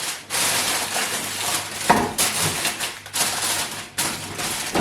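Food being handled while dishing up: a series of short rustling, scraping noises with brief gaps, and a single knock about two seconds in.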